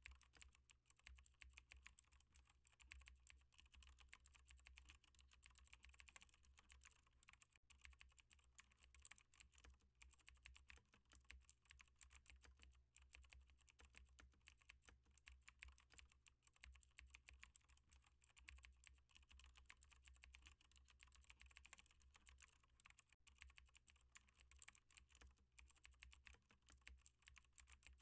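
Faint, continuous typing on a computer keyboard: rapid keystroke clicks with only brief gaps.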